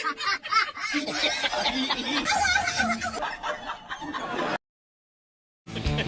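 Laughter that breaks off suddenly about four and a half seconds in, followed by a second of dead silence.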